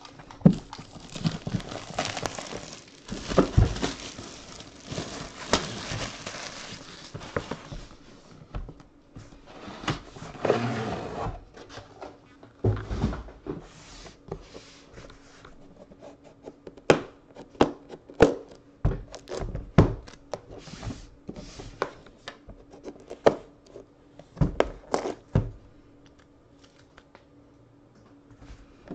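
Plastic shrink wrap being torn and crinkled as it is pulled off a cardboard card box. After about eight seconds come scattered knocks and clicks as the box is handled and a metal card case is lifted out and set down on the table.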